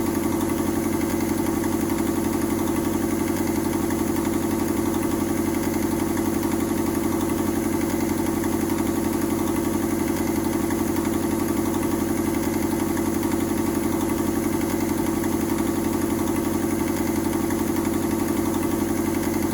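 Mazda 121 Metro's engine idling steadily through a leaking exhaust, an even, unchanging note.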